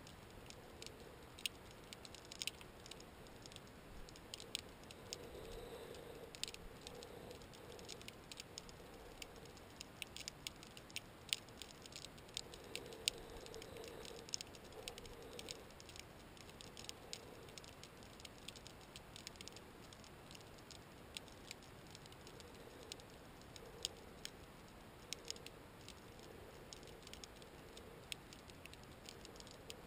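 Underwater ambience of scattered sharp clicks and crackles, irregular and at times several a second, over a faint hiss.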